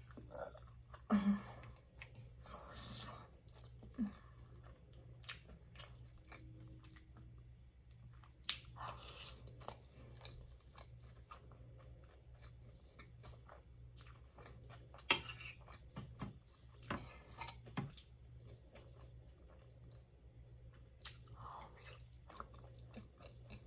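Close-miked chewing and mouth sounds of someone eating soft food, with scattered sharp clicks of a metal spoon against a plate, the loudest about a second in and about fifteen seconds in. A faint low steady hum lies underneath.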